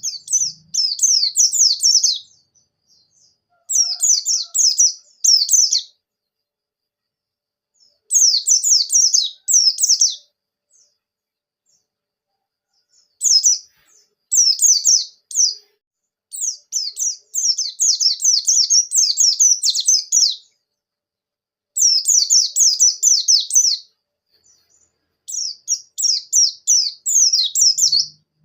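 A pleci (white-eye) singing loud, rapid phrases of quick down-slurred high notes, each phrase about two seconds long, with short pauses between. This is the lively, full 'gacor ngalas' song that bird keepers play to get their own pleci singing.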